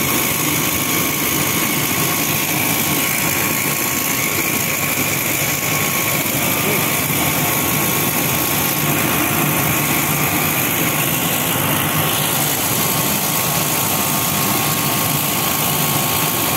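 Soya chunk manufacturing machinery running steadily: a continuous mechanical drone with a thin steady hum on top.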